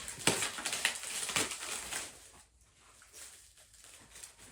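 Paper packaging crinkling and rustling as an item is unwrapped, with sharp crackles over the first two seconds, then quieter handling.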